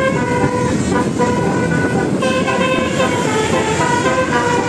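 Telolet musical horn playing a tune of stepped notes, thinning out briefly about a second in and then resuming, over a steady rumble of engine and traffic noise.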